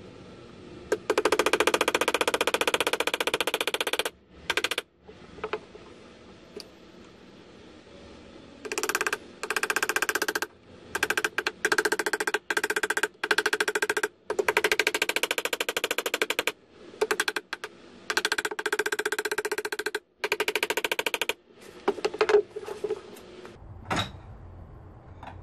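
A hammer driving small nails into square wooden dowel rails inside an Ikea Kallax bookshelf cubby: rapid strikes in runs of a few seconds, broken by short pauses.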